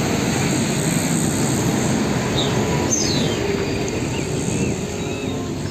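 A steady engine rumble with a rushing hiss over it, like a truck running, with a few faint bird chirps about midway.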